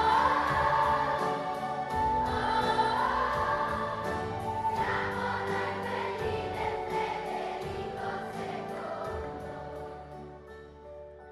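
A large children's choir singing with a school orchestra of violins and guitars, the music growing quieter toward the end.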